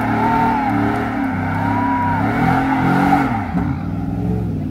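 A car engine running loudly and revving, its pitch dipping and rising again about three seconds in.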